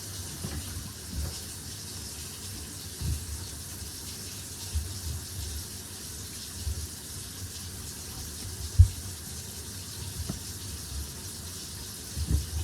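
Tap water running steadily into a kitchen sink and down through a newly installed garbage disposal's drain, a leak test of the new plumbing. A few dull low knocks come and go, the sharpest about nine seconds in.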